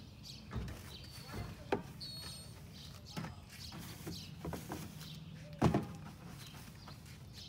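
Scattered knocks and scrapes of a long-handled brush scrubbing a soapy car body, with a sharp knock about five and a half seconds in, over a steady low hum.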